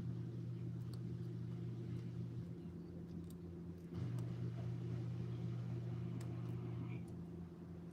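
Faint scattered clicks of lock picks working inside a Medeco lock cylinder, over a steady low hum that drops out for about a second and a half near the middle.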